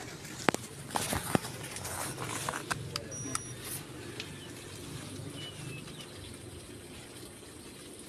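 Handling knocks and rustling on a phone's microphone as its holder walks, with several sharp knocks in the first second and a half, then a faint steady outdoor background.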